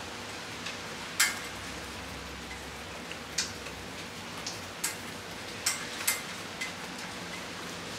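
Steady hiss of a rain shower, with irregular sharp taps of drops striking a hard surface close by, about seven in all, the loudest about a second in.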